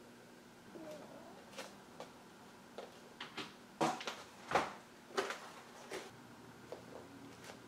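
An irregular series of light clicks and knocks, about a dozen over several seconds, the two loudest near the middle, over a faint steady hum.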